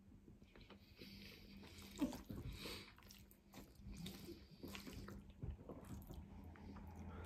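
Faint chewing and wet mouth sounds of eating saucy rice noodles and rice cakes, with soft clicks of a wooden fork stirring noodles in the bowl; one sharper click about two seconds in.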